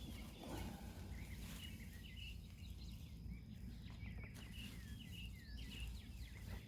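Birds chirping faintly in the background, a steady run of short high calls, over a low steady rumble.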